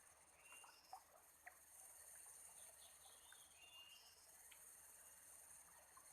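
Faint, steady chirring of forest insects such as crickets, with a few short high chirps and two small clicks about a second in.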